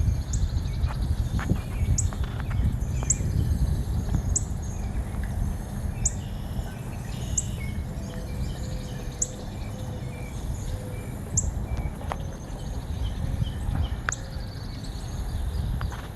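Birds calling: one repeats a short, very high rising note about once a second, and fainter chirps come in between, over a steady low rumble.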